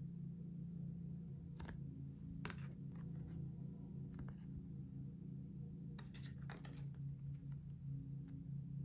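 Paper and card packaging being handled: a few short rustles and taps, with a longer rustle about six to seven seconds in, over a steady low hum.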